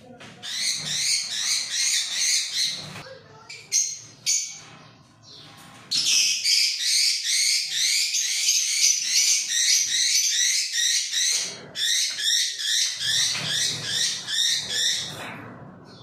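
A room full of caged lovebirds chirping rapidly and continuously in long stretches. Two sharp knocks come around four seconds in.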